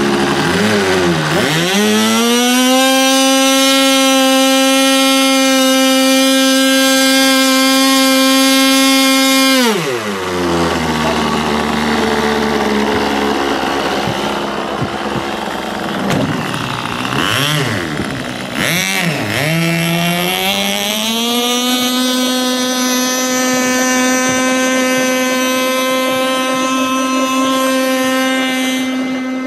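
Nitro glow engine of an AquaCraft radio-controlled boat revving up to high, steady revs about two seconds in and holding them. Near ten seconds it drops to idle, is blipped a few times, and then revs up high again and holds there.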